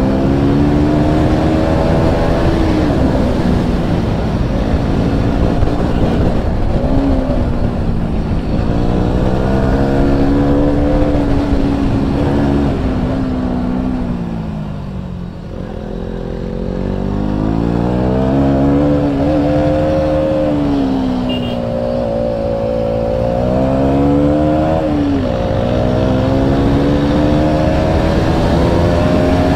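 KTM Duke 200 motorcycle with an Akrapovic exhaust, its single-cylinder engine heard close from the rider's seat, revving up and down as it accelerates and shifts through the gears. About halfway through the engine note drops away as the bike slows into a bend, then climbs again.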